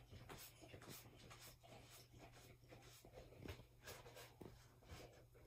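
Near silence, with faint, irregular scratchy rustling from a picture book being held and handled.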